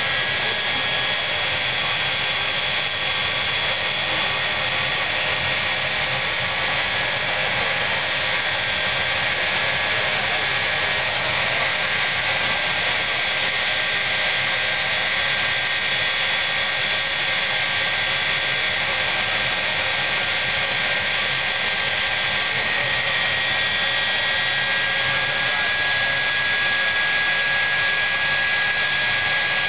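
Jet engine of a jet-powered 1957 Chevy semi truck running steadily: a loud rush with a high whine over it, the whine edging up in pitch near the end.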